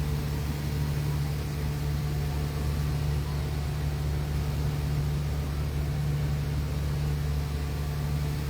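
Boat engine running steadily, a constant low drone with a faint hiss over it.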